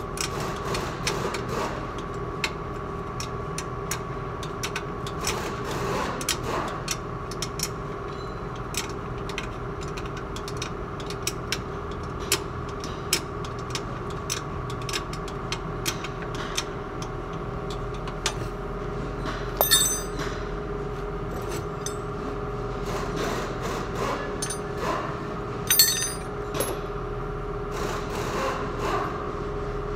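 Hand tools clicking, ticking and clinking on metal while a new front shock absorber is fastened into a Toyota Hilux's wheel well, over a steady hum; two louder metal clanks stand out about two-thirds of the way through and again near the end.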